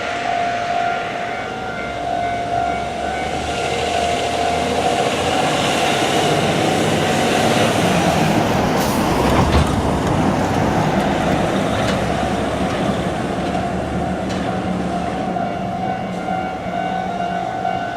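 Level-crossing warning bell ringing steadily while a heavy double-trailer haul truck drives through the crossing. The truck's engine and tyre noise builds to its loudest about halfway through, then fades.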